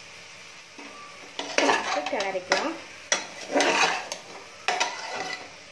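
Metal spatula stirring and scraping vegetables and soya chunks around an aluminium pressure cooker pan, in three long strokes starting about a second and a half in, with a light sizzle from the frying mix.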